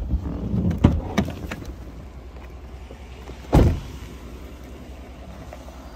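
Pickup truck engine idling with a steady low hum, with a few handling knocks early and one loud, short thump about three and a half seconds in.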